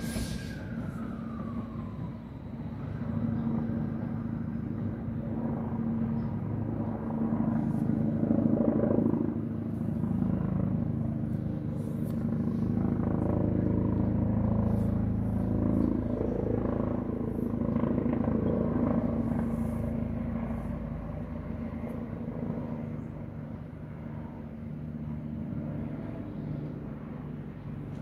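A large vehicle's engine rumbling steadily, swelling to its loudest around the middle and easing off toward the end. A high squeal glides down in pitch and dies away in the first two seconds.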